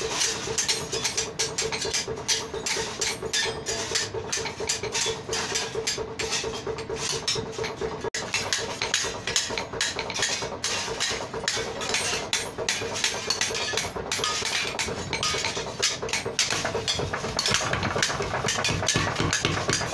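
Irregular clanks and hammer strikes of steel in a blacksmith's forge, with a steady hum under them that stops about eight seconds in. The strikes come thicker near the end.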